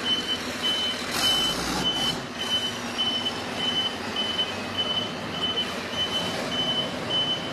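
Reversing-alarm-type warning beep sounding about twice a second over the running engine of an armoured military vehicle as it drives across a steel loading ramp, with a brief rush of noise about a second in.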